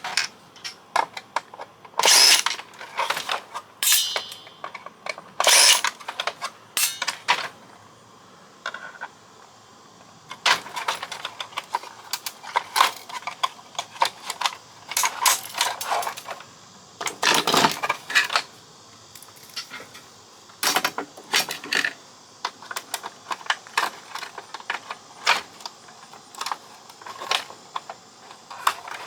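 Plastic and metal parts of a fax machine clicking and clattering as it is taken apart by hand and unscrewed, in irregular knocks and short scrapes.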